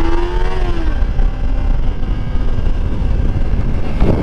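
Kawasaki Ninja sport bike's engine pulling up in revs, then dropping away as the throttle is closed about a second in. After that a steady low rumble of wind and road noise while the bike rolls on.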